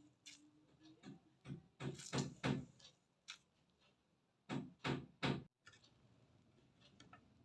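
A run of sharp knocks: several in quick succession, then after a pause three louder ones close together.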